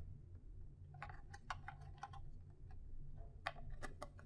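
Scattered faint plastic clicks and taps as a plastic reagent bottle is fitted and twisted into its cap on the analyzer, over a low steady hum.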